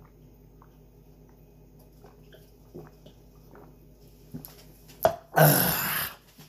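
Faint swallowing as soda is drunk from a plastic cup. About five seconds in, the cup is knocked down onto the table, followed at once by a loud, breathy "aah" exhale of under a second.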